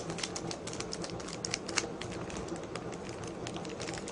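Plastic toy packaging being handled and pulled open by hand: a quick, irregular run of small crackling clicks.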